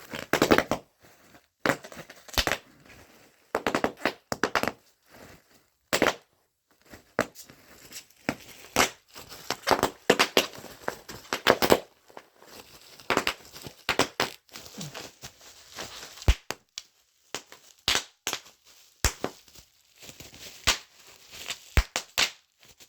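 Plastic bubble wrap being squeezed and popped by hand: irregular sharp pops, sometimes several in quick succession, among crinkling plastic.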